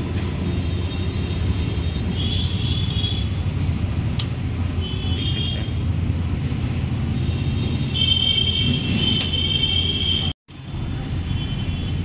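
Steady low rumble of vehicles running nearby, with brief high-pitched tones now and then; it cuts out for an instant about ten seconds in.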